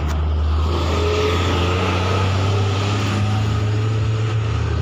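A motor vehicle's engine idling, a loud, steady, low hum that steps up slightly in pitch a little past halfway.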